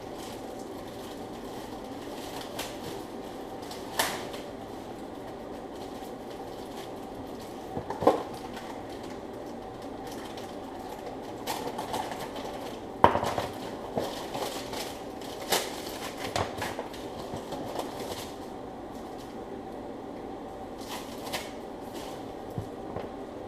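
Intubation equipment being handled and laid out in a hurry: scattered clicks, clatters and knocks of plastic and metal parts over a steady background hum.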